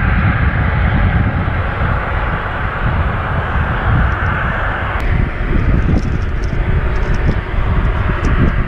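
Wind buffeting the action camera's microphone: a steady low rumble with a hiss above it. From about five seconds in come a few light clicks of gear being handled.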